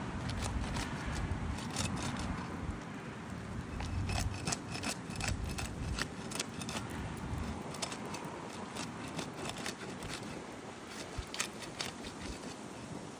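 A sharp flat roofing tool prying under asphalt shingles to break their sealant strips: scattered clicks, scrapes and crackles, over a low rumble that fades about seven seconds in.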